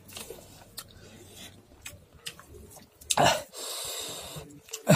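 A man breathing noisily while eating rice and dal by hand: a loud snort-like sniff about three seconds in, followed by a breathy hiss, and another sharp sniff near the end, with faint clicks of fingers working the rice on a steel plate.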